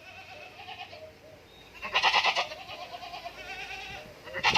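Goat bleating: a loud, quavering bleat about two seconds in and another starting near the end, with fainter calls between them.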